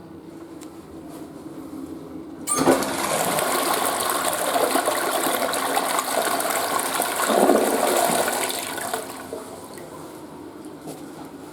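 Flush toilet flushing: a sudden rush of water starts about two and a half seconds in, runs loudly for about six seconds, then tails off.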